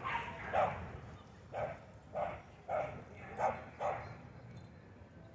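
A dog barking, a string of about seven short barks over the first four seconds.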